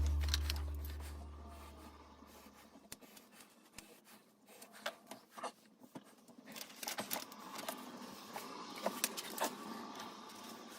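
Background music fading out over the first couple of seconds, then faint, irregular clicks and scrapes of objects being handled, louder near the end.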